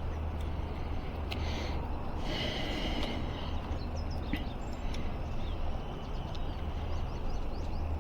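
Outdoor ambience: a steady low hum with birds chirping in the background, a few light clicks, and a brief hiss a little over two seconds in.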